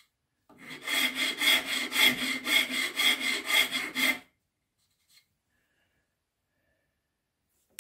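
Shinto-type lattice rasp shaping the edge of a small wooden part: a run of rough, even rasping strokes, about two a second, that stops about four seconds in.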